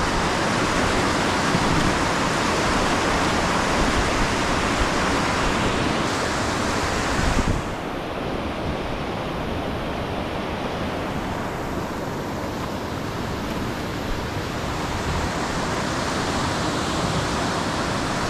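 Whitewater rapids rushing steadily. About halfway through the sound drops a little and turns duller, losing its hiss.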